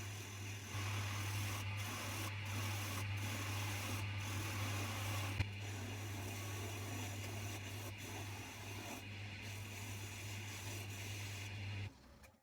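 Coronet 1 wood lathe running with a steady low motor hum while a turning tool scrapes and cuts a spinning pine log, roughing it round. A sharp click about five seconds in; the sound stops suddenly near the end.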